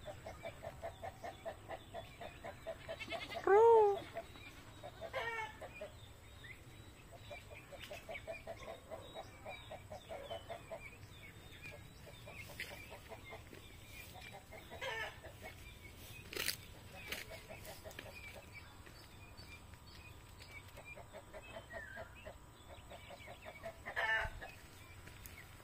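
Domestic turkeys perched in a tree calling: several runs of rapid, evenly repeated notes, broken by a few louder calls that rise and fall in pitch. The loudest of these comes about three and a half seconds in. A single sharp click sounds about sixteen seconds in.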